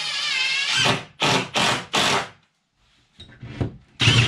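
Cordless drill driving a screw into a plywood wall sheet: one longer run, then several short bursts about a third of a second apart as the screw is driven home. Near the end the drill starts up again, boring a hole through the plywood.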